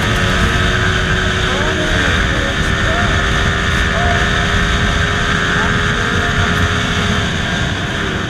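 Yamaha MT-15's 155 cc single-cylinder engine running on the move, with heavy wind noise on the microphone. The engine note shifts a little as the revs change.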